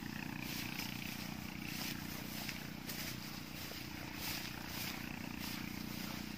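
Footsteps swishing through tall, wet rice plants and grass, a soft rustle every half second or so, over a steady low drone.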